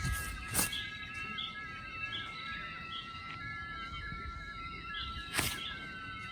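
Short bird chirps about a second apart over a steady mix of high ringing tones, with two brief sharp noises, one just after the start and one about five seconds in.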